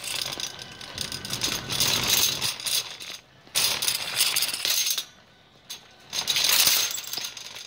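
Metal shopping cart rattling as it rolls fast over a hard store floor. The rattle comes in three stretches with short quieter gaps between.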